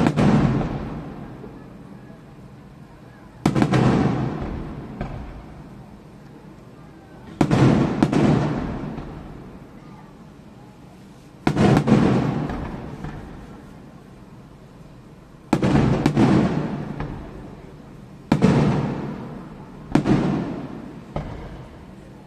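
Aerial firework shells bursting overhead. A sharp bang comes about every four seconds, each followed by a long echoing rumble that fades over a couple of seconds. Near the end the bangs come faster.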